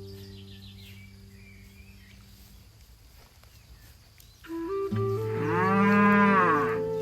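A cow moos once, a long call that rises and falls in pitch, about five seconds in. It sits over background music that fades away at first and comes back just before the moo.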